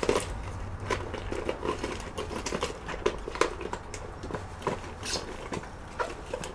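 Small parts and objects being handled and rummaged through: irregular light clicks, taps and rustling, over a steady low hum.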